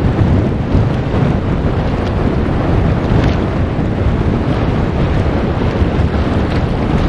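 Wind buffeting the camera's microphone: a loud, steady, low rumbling wind noise.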